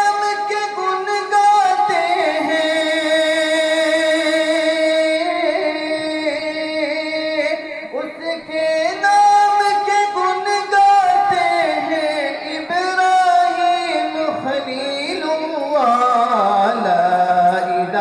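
A solo male voice singing an Urdu religious tarana through a microphone, in long held, ornamented notes that slide between pitches, with short breaths between phrases.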